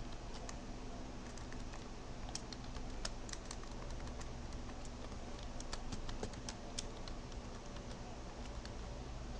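Typing on a computer keyboard: irregular key clicks over a faint steady low hum.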